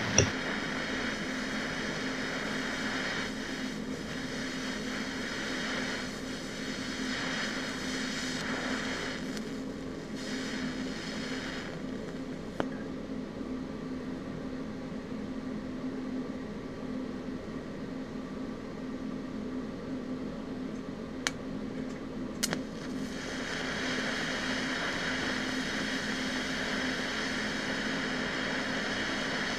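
Welding arc running silicone bronze filler into a cracked brass check-valve casting at about 150 amps: a steady hiss over an electrical hum, with two sharp pops about two-thirds of the way through. The hissing and popping are a sign of impurities burning out of the old casting.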